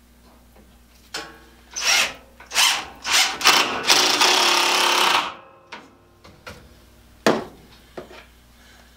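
Cordless drill driving wood screws: several short pulses of the motor, then a longer run of about a second and a half that stops suddenly, as screws are sunk into a walnut brace. A sharp knock follows a couple of seconds later.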